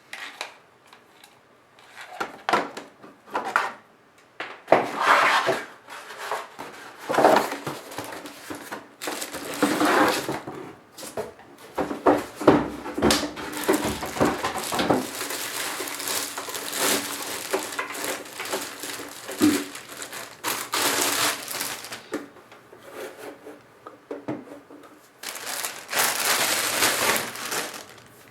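Packaging crinkling and rustling in irregular bursts of varying loudness as a dehumidifier is unpacked from its box.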